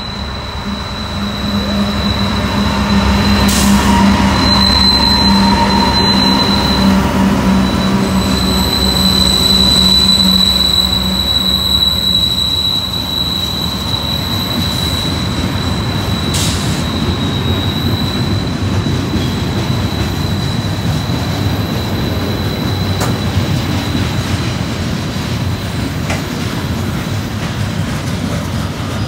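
Loaded CSX coal train passing close by. The diesel locomotives' engines run loud for the first dozen seconds, then loaded coal hoppers roll past with a steady rumble. A thin high squeal runs throughout, and there are two sharp clanks, about four seconds in and again around sixteen seconds.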